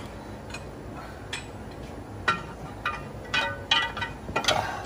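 Metal clinks and scrapes from a steel pry bar being worked in against a heavy ring-gear drum held up to the engine. A few single clicks at first, then a busier run of clinks and knocks in the second half, some with a short ring.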